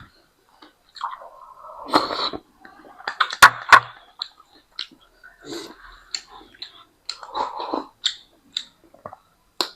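People eating Shin Ramyun noodles close to the microphone: irregular chewing and mouth clicks, with a few louder bursts about two and three and a half seconds in.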